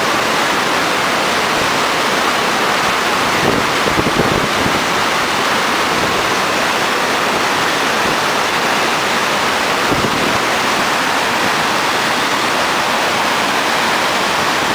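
Loud, steady rush of whitewater pouring over a stepped river weir and churning in the stopper below it.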